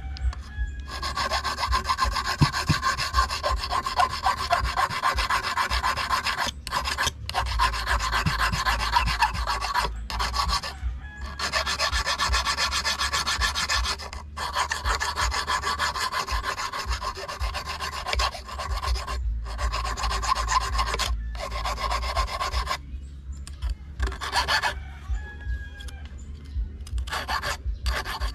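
A stainless steel wire rubbed rapidly back and forth along a hand file, filing down its tip to make a homemade fishing hook. The scraping comes in long runs of fast strokes broken by short pauses, with a few separate strokes near the end.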